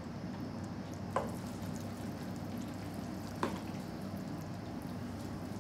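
Hot caramel-candy mixture, cooked to 116 °C, bubbling softly in a saucepan as butter is scraped in and stirred with a spatula. Two light clicks, about a second in and again about three and a half seconds in.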